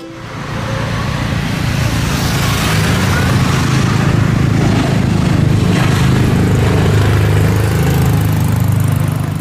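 Loud, rough vehicle engine noise that swells in over the first two seconds, holds steady, then stops near the end.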